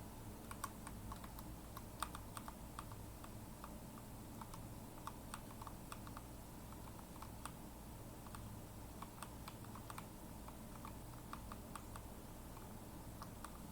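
Computer keyboard arrow keys tapped in irregular runs of short clicks, steering the simulated cart, over a faint steady low hum.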